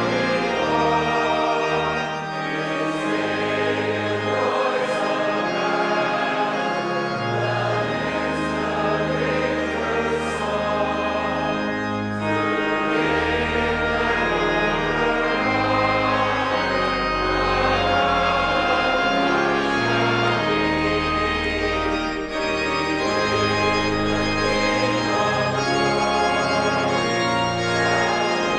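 Organ playing slow, held chords with a moving bass line, with a choir singing along.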